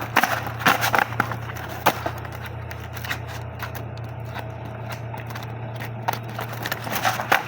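Hands handling packaging and the unboxed items: scattered clicks and crinkles, busiest in the first two seconds and again near the end, over a steady low hum.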